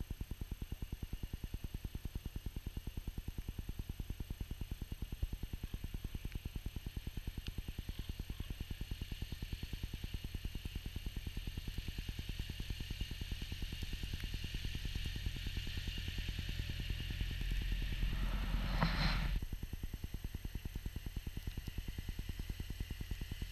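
Kubota B7610 compact diesel tractor running steadily while clearing snow, its engine giving a fast even beat under a hiss. About three-quarters of the way through, a louder rushing surge builds for about a second and cuts off suddenly.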